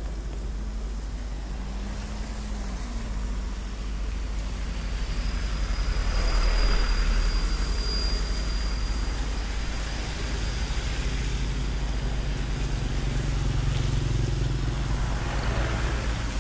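Road traffic passing close by on a wet road: a truck, cars and a minibus go by over a steady low rumble, their tyres hissing on the wet asphalt, loudest about six to eight seconds in and again near the end. A thin high whine sounds through the middle.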